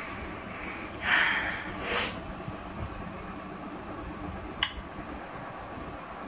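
Two short breathy sounds from a person about one and two seconds in, then a single short kiss smack on a cheek a little past the middle.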